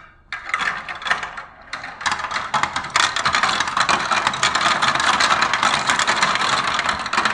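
Plastic paddle wheel of a toy marble run spun by hand, giving a fast rattling clatter of many tiny clicks. It comes in short spells at first and runs on unbroken from about two seconds in.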